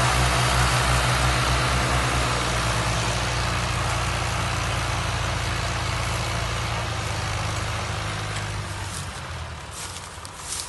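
Heavy farm diesel engine running with a low, pulsing tone, then dying away over the last few seconds. A few short clicks near the end.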